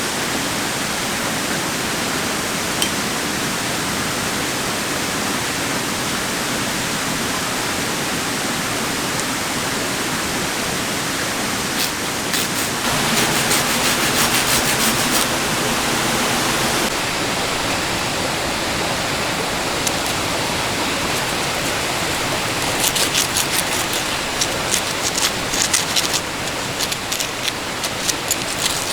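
A creek's running water, a steady rushing. Clusters of short clicks come through it about halfway in and again near the end.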